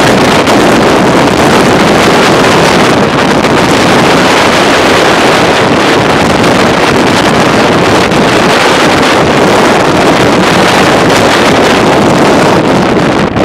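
Steady, loud rush of wind buffeting the microphone on the open deck of a ferry under way, mixed with the wash of the sea streaming along the hull.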